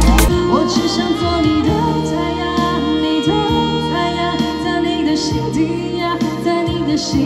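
Drum-beat music cuts off just after the start and gives way to live music: a woman singing, with electronic keyboard and saxophone accompaniment.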